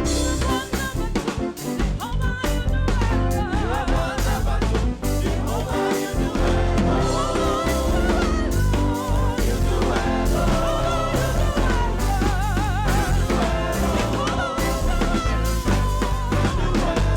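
Live gospel praise band playing: drum kit with a strong bass line under it, and wavering melodic lines from voices or a lead instrument.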